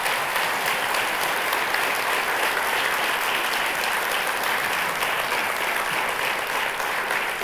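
An audience applauding, a dense, steady clapping that holds at one level.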